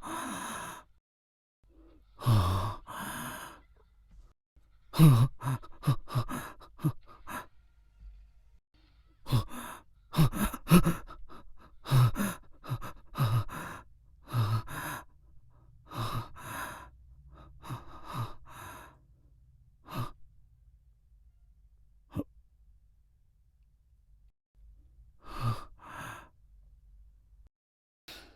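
A man sighing and catching his breath in gasping, sob-like bursts, a dozen or so short outbursts with pauses between, quieter near the end.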